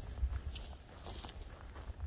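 A hiker's footsteps on the trail, several short steps over a steady low rumble.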